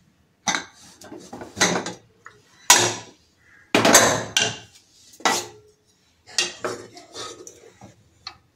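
Metal clanks and scrapes of an aluminium pressure cooker being opened after five whistles, as its weight and lid are handled and taken off, a dozen or so separate knocks. Near the end a wooden spoon knocks inside the pot.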